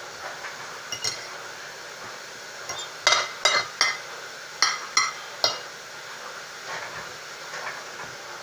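Dishes and utensils being handled in a kitchen: a run of about eight sharp, ringing clinks in the middle, over a steady faint hiss.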